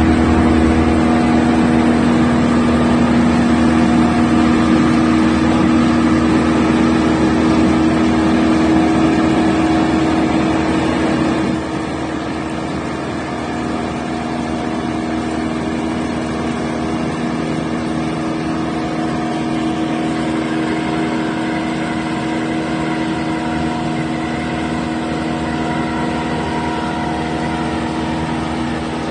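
Engine of a mobile wood chipper running steadily with a strong even hum, dropping somewhat in loudness about twelve seconds in and then carrying on steadily.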